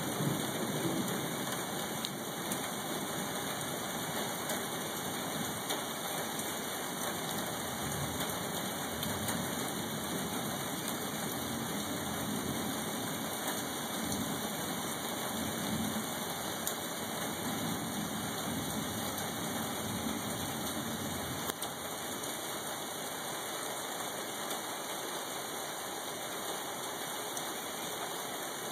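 Steady hiss of light rain falling after a thunderstorm, with a low rumble underneath that swells and fades through the middle.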